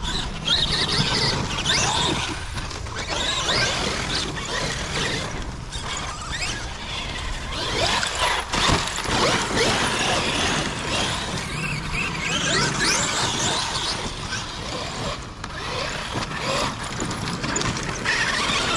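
Traxxas X-Maxx RC monster truck with a Hobbywing 800kV Max5 brushless system driving on loose sand and dirt, its motor and drivetrain whining up and down with repeated bursts of throttle.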